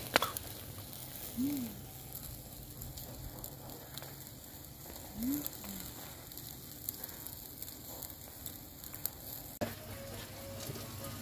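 Food frying in hot oil: a steady sizzle with frequent small crackling pops.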